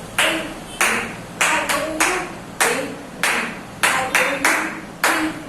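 Hand claps in a loose rhythm, a sharp clap roughly every half second to second, with a voice heard faintly between them.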